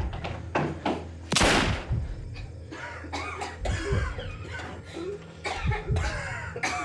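Dramatic reenactment sound: a low steady drone under one sudden, loud, noisy burst about a second and a half in, followed by wavering, cough-like vocal sounds from a person in distress.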